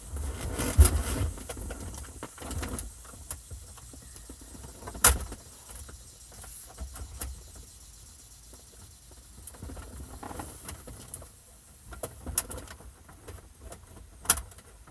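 Handling noise from a car stereo head unit and its wiring being worked into the dash: rustling with a few sharp plastic clicks and knocks, the loudest about a second in and about five seconds in, more near the end.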